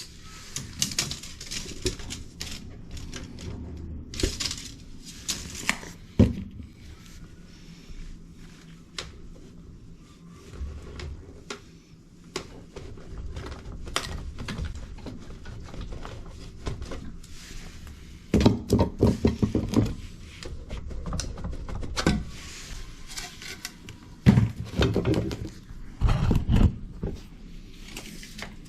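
Irregular knocks, clicks and clatter of things being handled, with louder clusters of knocking near the middle and toward the end.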